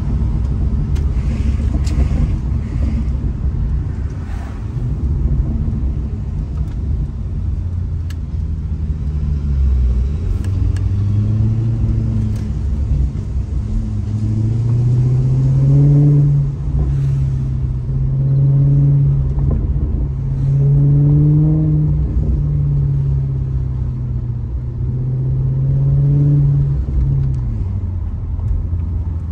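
Maserati GranTurismo's V8 engine driving along over a low road rumble. From about ten seconds in, the engine note climbs and drops back several times as the car accelerates through the gears.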